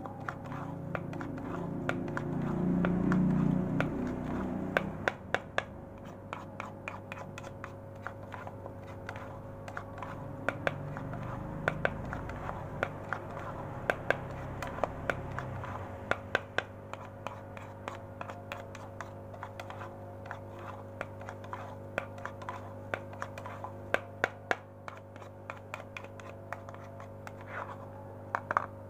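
Metal spoon stirring and scraping damp catfish feed pellets in a plastic bowl: many irregular small clicks and scrapes of spoon against pellets and bowl, with a low rumble during the first five seconds.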